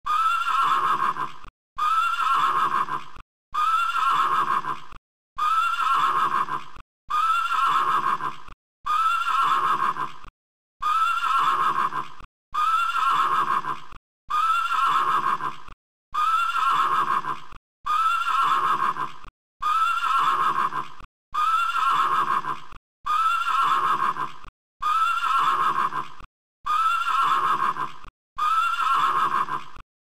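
A single recorded horse whinny looped over and over, one about every 1.7 seconds. Each call is a quavering, trembling neigh that rises and then falls in pitch, cut off sharply before the next identical repeat.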